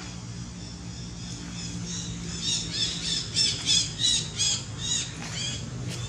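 A rapid series of about ten high-pitched squawking animal calls, roughly three a second, starting about two seconds in and stopping shortly before the end, over a steady low hum.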